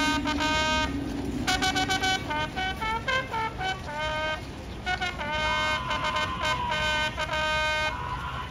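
Cavalry trumpet call played by a mounted trumpeter: runs of short repeated notes broken by longer held notes, ending about eight seconds in.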